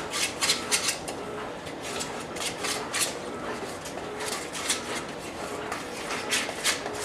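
Spiced yogurt marinade being stirred in a stainless steel mixing bowl: wet smacking and scraping that comes in short bursts every second or two.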